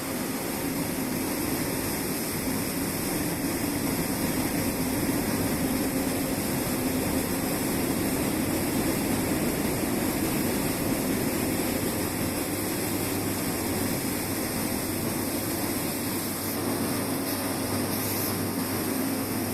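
Combine harvester's engine and threshing machinery running steadily while cutting rice, a continuous even drone with a low hum.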